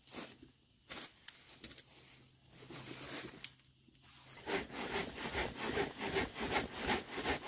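A few faint snaps, then about four and a half seconds in a folding hand saw starts cutting through a dead log, with quick back-and-forth rasping strokes.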